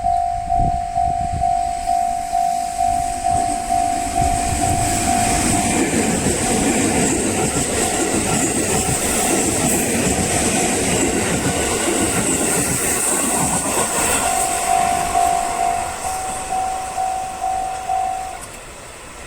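Japanese level-crossing warning bell ringing in a steady, quick ding-ding about twice a second while a train runs through the crossing. The train's rumble and wheel noise swell in the middle and die away, and the bell stops shortly before the end.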